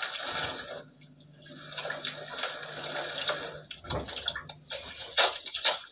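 Sea water lapping and splashing against the hull of a small outrigger boat, over a faint steady hum, with a few sharp knocks near the end.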